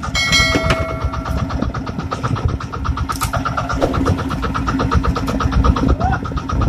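Outrigger fishing boat's engine running steadily with an even, rapid beat. A brief ringing tone sounds in the first second.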